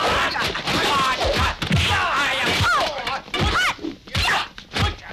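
Dubbed kung fu fight sound effects: a rapid series of punch and kick impacts, each a short heavy thwack, with fighters' shouts and grunts in between.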